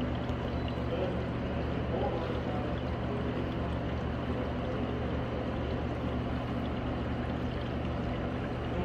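Steady low hum with an even rushing, water-like noise over it, typical of a large aquarium's pumps and water circulation.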